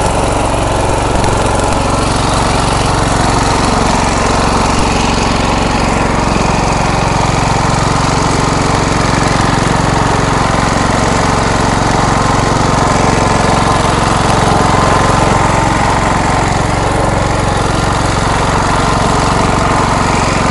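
MTD riding lawn mower engine running loudly and steadily.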